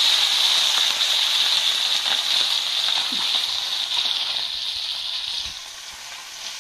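Fish frying in hot oil in a wok: a steady sizzle that slowly dies down over the last couple of seconds, with a few faint knocks of the metal ladle.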